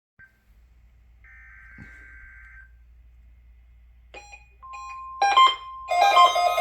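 A string of electronic tones: a short blip, a buzzy tone lasting about a second and a half, two quick beeps and a held steady tone, then a loud chime-like hit. Near the end, music with repeating plucked notes begins.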